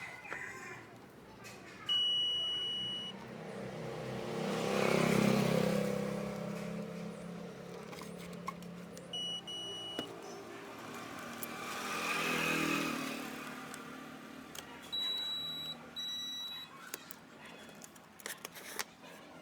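Electronic beeps: a beep about a second long, a short beep some seven seconds later, then two higher-pitched beeps near the end. Under them is a low steady hum with two slow swells of rumbling noise, the first of them the loudest sound.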